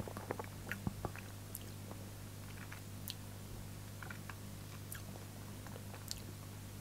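Wet mouth clicks and lip smacks of a person tasting a mouthful of beer: a quick cluster in the first second, then scattered single clicks. A steady low hum runs underneath.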